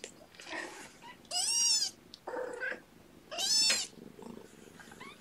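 A 17-day-old kitten fussing: two loud, high-pitched cries about two seconds apart, with fainter mews between them.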